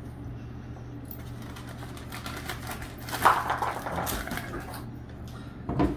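Rustling and light clicking from handling the helmet's cloth bag and the box's packing, busiest about three to five seconds in, with a short knock near the end, over a low steady hum.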